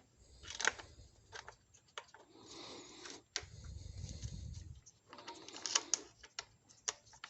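Irregular clicks and light knocks of the thermostat housing and its screws being handled and fitted back onto the engine, with a low rumble for about a second near the middle.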